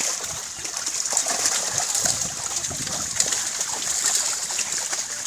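Pond water splashing and sloshing against a drag net as it is hauled in, with many small irregular splashes from fish thrashing in the net.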